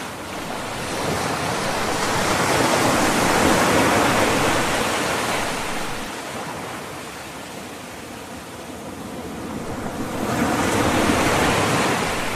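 Ocean surf: a wave swells and washes in, peaking about four seconds in, draws back, then a second wave rises near the end.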